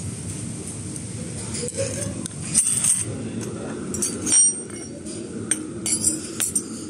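Restaurant dining-room hubbub: a low murmur of diners, with porcelain and cutlery clinking several times, sharpest about two and a half and four and a half seconds in.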